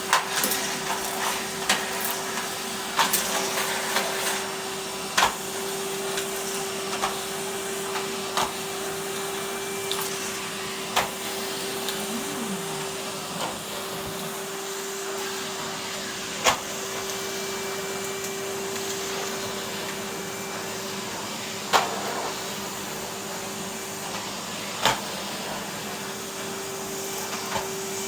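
Numatic Henry canister vacuum cleaner running steadily with a constant hum, with scattered sharp clicks and knocks over it.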